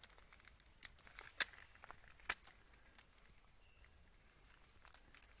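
Faint outdoor ambience: an insect trilling steadily at a high pitch, with three sharp clicks in the first half.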